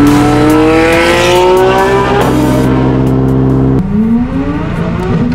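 Sports car engine accelerating hard, its pitch climbing steadily through a gear. About four seconds in the revs drop sharply at a gear change and start climbing again.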